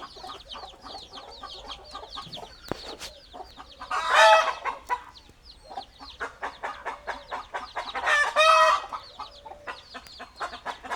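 Small chicks peeping in a rapid, constant chatter, with chickens clucking. Two loud, drawn-out chicken calls stand out, about four and eight seconds in.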